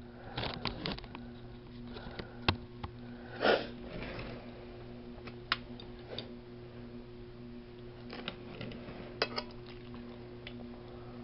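A person eating quietly: a few sharp clicks like a fork on a plate and occasional mouth and breath noises, over a steady low hum.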